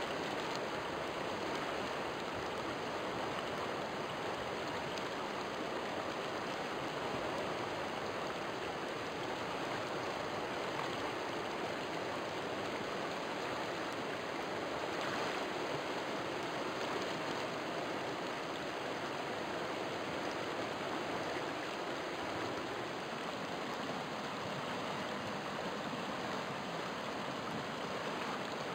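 River water flowing: a steady, even rush of moving water with no breaks or distinct splashes.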